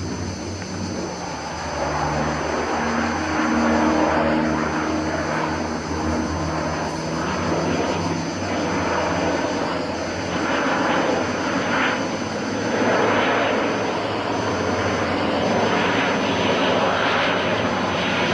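Canadair amphibious water-bomber flying past with its propeller engines running, getting louder about two seconds in and staying loud.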